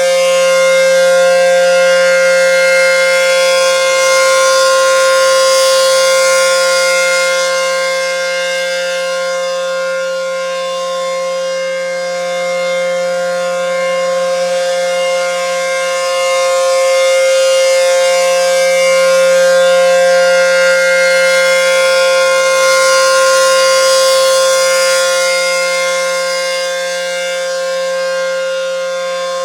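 ACA P-10 outdoor warning siren sounding during a test, holding one steady pitch with no rise or fall. Its loudness swells and fades slowly, peaking about every 18 seconds.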